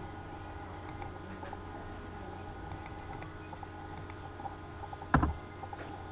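Faint computer mouse and keyboard clicks over a steady low hum, with one loud thump about five seconds in.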